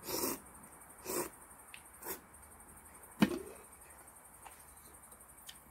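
A person slurping ramen noodles: three short slurps, then a sharp click about three seconds in, followed by one more brief slurp.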